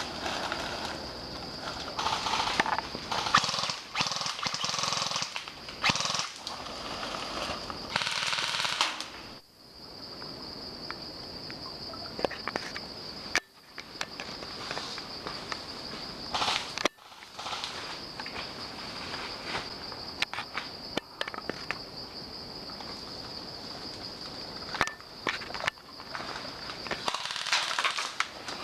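Airsoft gunfire in woodland: scattered sharp clicks and short runs of shots. They sit over a steady high insect buzz, with stretches of rustling movement through undergrowth.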